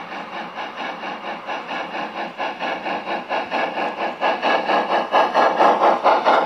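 Gauge 1 (1:32) model of a class 58 steam locomotive running past, its sound unit giving a rhythmic chuffing of about five beats a second. The sound grows steadily louder as the locomotive draws alongside.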